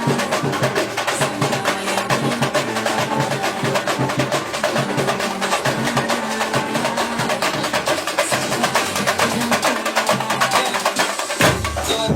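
Band music driven by fast, dense percussion, with pitched instruments underneath; a deep bass comes in near the end.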